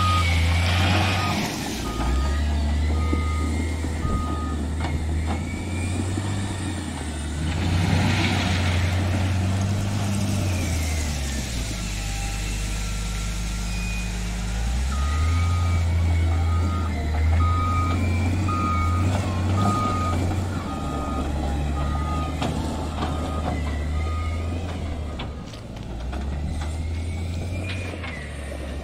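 Caterpillar 950 GC wheel loader's diesel engine working, its pitch rising and falling with the load as it pushes and levels crushed basalt, with crushed stone grinding under the bucket. Its reversing alarm beeps steadily in two spells of backing up, one at the start and one from about halfway through until a few seconds before the end.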